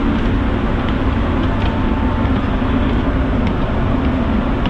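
Steady low rumble with a constant drone from the Santa Maria sightseeing boat's engines, with no change in pitch.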